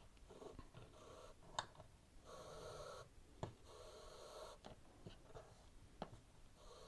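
Faint handling sounds of yarn being pulled through the warp threads of a small wooden weaving loom: two soft rustling drags in the middle, with a few light clicks of fingers and yarn against the loom.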